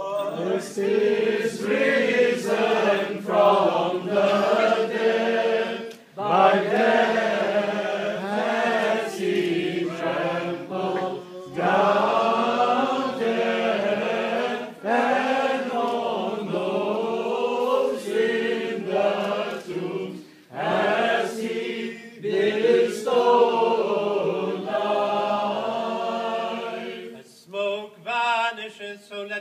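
Voices singing Orthodox liturgical chant in long phrases over a steady held low drone, with brief breaks between phrases.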